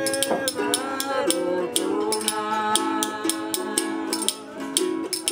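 A man singing a Pacific island song to his own strummed ukulele, with a shaker rattling in a steady beat.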